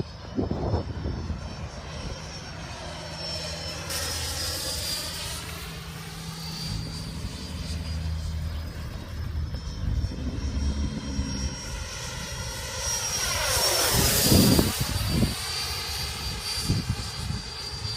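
Radio-controlled F-16 jet model's 90 mm electric ducted fan in flight: a steady high whine over a jet-like rush of air. It swells to its loudest on a close pass about 14 seconds in, the whine dropping in pitch as it goes by.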